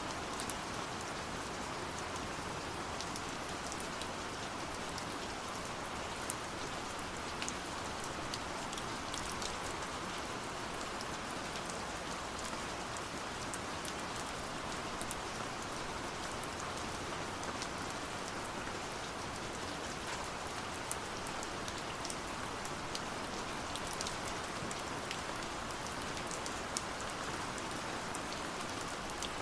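Steady gentle rain falling, an even hiss with many small drops pattering on a surface.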